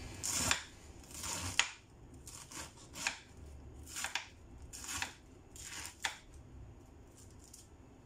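Kitchen knife slicing through a cabbage wedge onto a cutting board: a run of crisp, separate cuts, roughly one a second, that stop about six seconds in.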